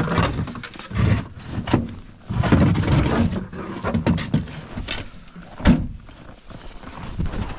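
Footsteps crunching through snow and a winter jacket rustling against the microphone, in uneven bursts, with one sharp knock about five and a half seconds in.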